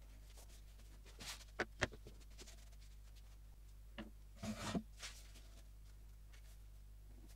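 Faint hand-handling of paper and board: a soft rub of palms over paper, two sharp knocks about a second and a half in, then a tap and a short scraping slide about four seconds in.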